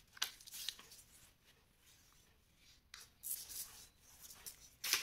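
A sheet of paper being folded and its crease pressed flat by hand: soft rustling and rubbing strokes, the clearest about three seconds in and at the end.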